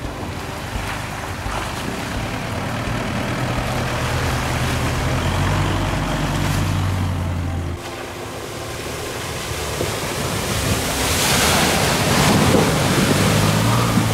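Off-road SUV driving over rough ground: engine running low beneath heavy wind and tyre noise, with an abrupt change in the sound about eight seconds in.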